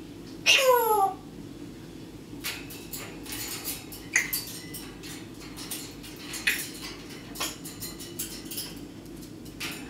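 A parrot imitating a firework: one loud whistle that falls in pitch about half a second in, followed by a scatter of sharp clicks and short chirps.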